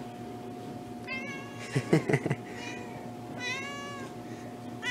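Domestic cat meowing at someone holding a treat, begging for it: a meow about a second in, another about three and a half seconds in, and a longer one starting at the end. A few loud short knocks about two seconds in.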